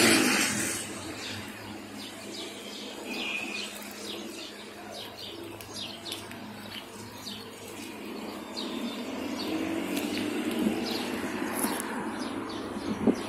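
Small birds chirping and twittering in the trees, many short high calls. A passing car fades away in the first second.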